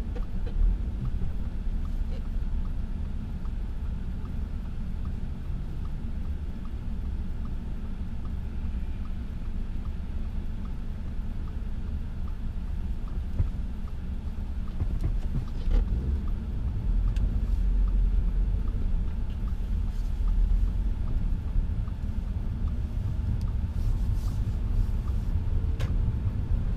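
Steady low rumble of a car driving, heard from inside the cabin, growing a little louder in the second half.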